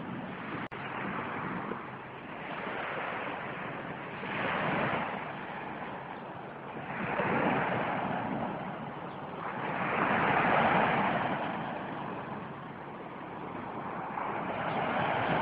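Small waves washing onto a sandy beach, the surf swelling and falling back every three seconds or so.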